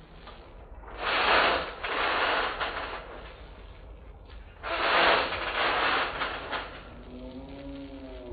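Trampoline springs and mat rattling and creaking under a child's bouncing, in two long stretches with a quieter gap between them.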